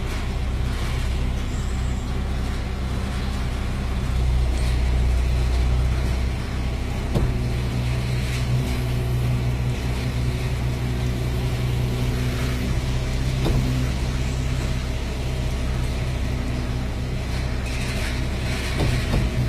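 Concrete mixer truck's diesel engine running steadily, its low pitch changing about six seconds in, with a few short knocks.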